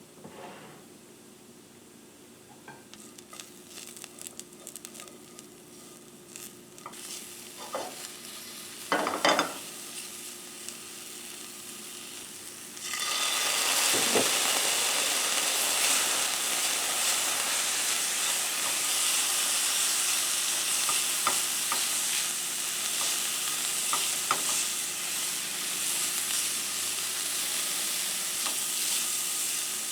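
Scattered clicks and knocks of kitchen utensils, then, about thirteen seconds in, food goes into a hot pan and a loud, steady frying sizzle starts, with occasional utensil taps.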